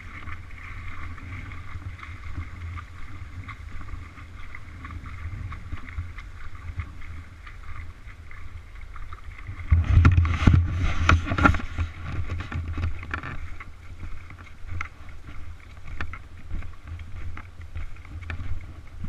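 Steady rush of a river current, with wind buffeting the microphone as a low rumble; the sound swells louder for a few seconds about halfway through.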